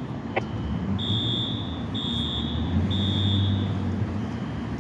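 Fire alarm sounding a high electronic tone in repeated pulses, each just under a second long with a short gap between, over a low rumble. A brief click comes about half a second in.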